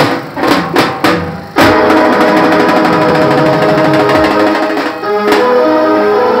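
Street band music: a few sharp stick strokes on a drum, then about one and a half seconds in a steady melody enters, with held notes over continuous drumming.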